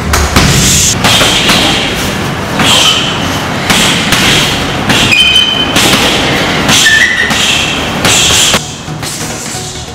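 Muay Thai kicks and gloved punches landing on hanging heavy bags: a run of loud thuds at uneven intervals, roughly one every half second to a second.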